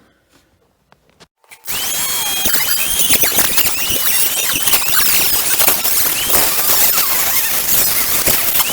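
Dremel rotary tool cutting into a plastic light-switch module, starting about two seconds in: a steady loud grinding with high squealing tones that rise and fall.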